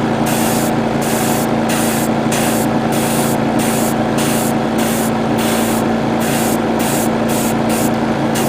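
Airbrush spraying yellow paint in short pulses, a hiss starting and stopping about every half to three-quarters of a second, over the steady hum of its air compressor.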